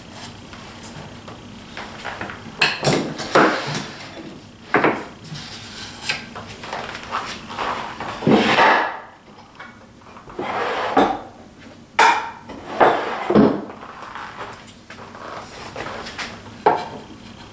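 Irregular knocks, clatters and scrapes of wooden boards and tools being handled and set down on a workbench, with no saw running.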